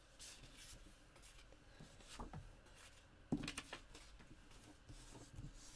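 Quiet handling of card stock: faint rustles and light taps of paper pieces being moved and laid together, with one sharper tap about three seconds in.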